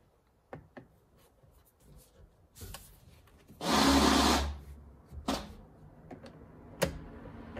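Hands and a flathead screwdriver working at a car's steering wheel: a few light clicks and knocks, and about a second of loud rubbing a little before halfway as the wheel is gripped and turned.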